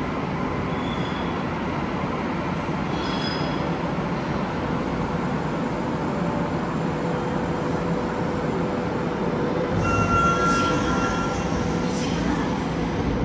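A Namboku Line subway train running into the underground station behind full-height platform screen doors and slowing to a stop: a steady rumble with a faint steady whine. About ten seconds in there is a louder swell with a short high tone and hiss as the screen doors and train doors open.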